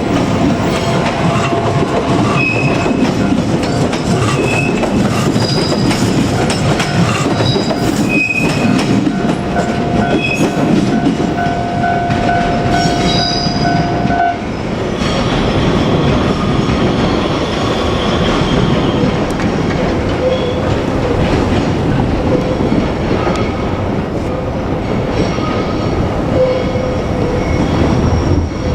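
JR Kyushu 817 series electric train running past at close range: steady rail rumble with wheels clattering over rail joints and short squeals. A steady whine runs under it and cuts off suddenly about halfway through.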